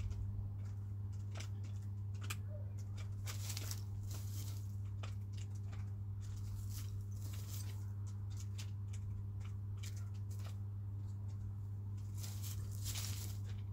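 Chickens pecking and scratching: irregular sharp taps and a few short rustles, over a steady low electrical hum.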